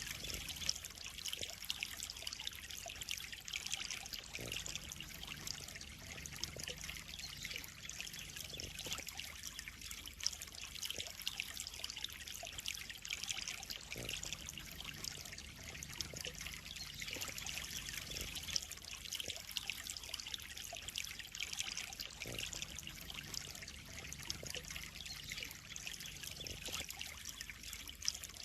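Water trickling and splashing steadily into a koi pond, an even running-water hiss full of small quick splashes.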